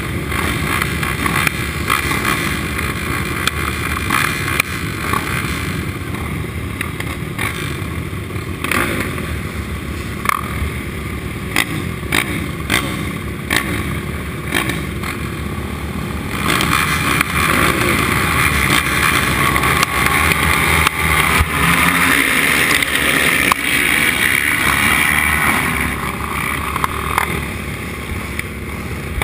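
A group of sport ATV engines running at the starting line, idling with throttle blips. About sixteen seconds in, the sound gets louder and fuller as a row of quads launches at full throttle, and it stays up for several seconds.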